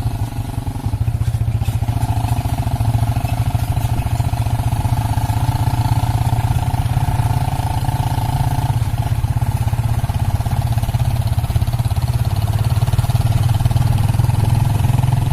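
Motorcycle engine running steadily under way, close to the microphone, its exhaust beat a dense even rumble.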